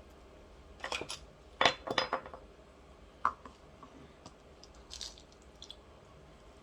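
Kitchen utensils and dishes clinking and knocking as they are handled, loudest in a short clatter about two seconds in, then a single click and a few faint taps.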